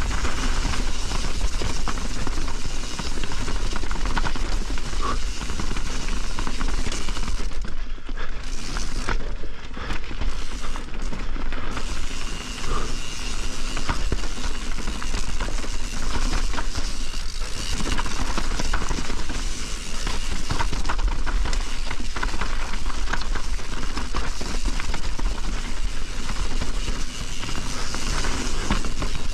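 Privateer 161 enduro mountain bike descending a rough trail: a continuous rattle and crackle of tyres over rocks and roots, with chain and frame clatter and a low wind rumble on the microphone.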